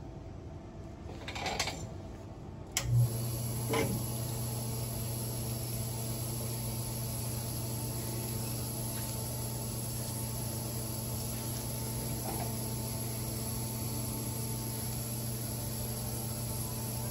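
Crystal microdermabrasion machine switched on with a click about three seconds in, its pump then running with a steady low hum and a high hiss.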